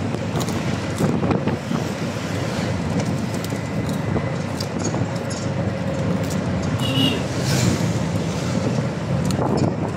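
Steady engine and road noise of a moving vehicle heard from on board, with wind buffeting the microphone.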